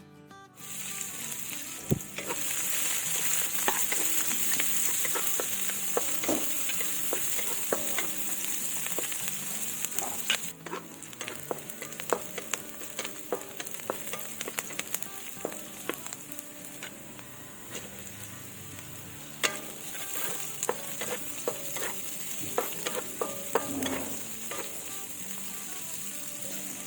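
Food frying in hot oil in a pan, a steady sizzle that starts about half a second in, with frequent sharp clicks and scrapes of a spatula against the pan as the food is stirred.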